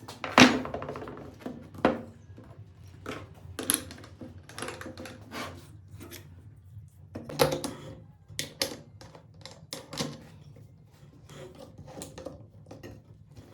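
Wood and tools being handled on a work surface: a series of irregular knocks and clicks, the loudest about half a second in.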